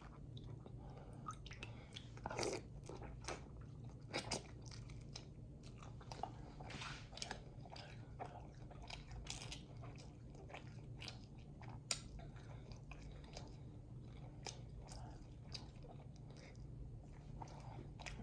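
Close-up mouth sounds of someone eating crab and steak: chewing and biting, with many short wet clicks and small crunches scattered throughout.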